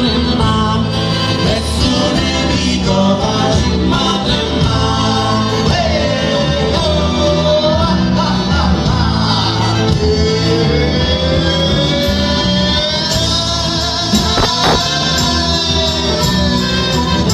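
A live folk band playing a southern Italian folk song: a man singing over accordion, acoustic guitars and drums, with a sharp drum or cymbal hit near the end.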